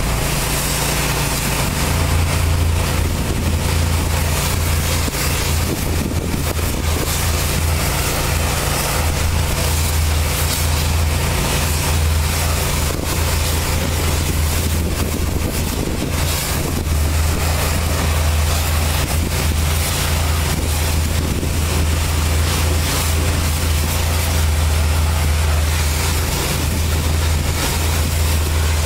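Pressure washer running steadily: a low engine hum under the hiss of the wand's spray hitting the dump truck trailer.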